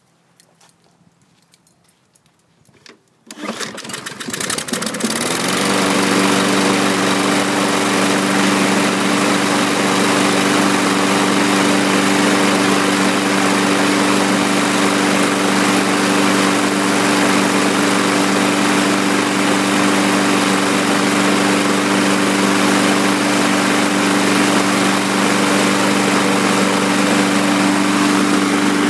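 Briggs & Stratton 675EXi single-cylinder engine on a Husqvarna LC221A walk-behind mower starting about three seconds in, its speed climbing for a couple of seconds, then running steadily. It catches once the blade-brake safety cable is clamped tight, which the owner thinks opened the kill switch.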